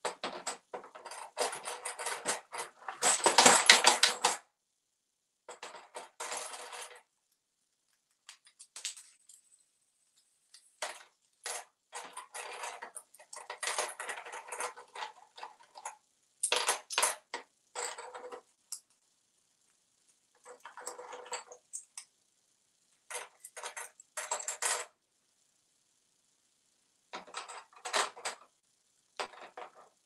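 An African grey parrot playing with toy coins on a hard countertop, picking them up and dropping them in and around a plastic cash tray: irregular bursts of clinking and clattering with short silent gaps between, the loudest clatter about three to four seconds in.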